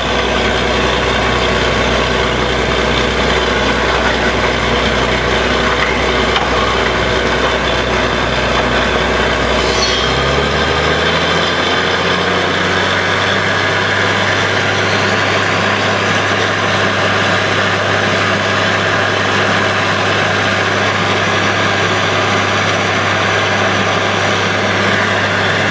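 Truck-mounted borewell drilling rig running steadily as it drills: a continuous engine drone. About ten seconds in, the low drone steps up in pitch.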